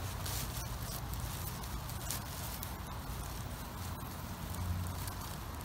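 Faint rustling and light ticks of a hand moving through low forest-floor plants, over a steady outdoor hiss and low hum.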